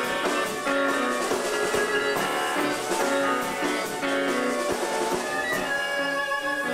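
A live chamber-rock ensemble playing: bowed violins carrying held melodic notes over piano, with steady drum and cymbal hits.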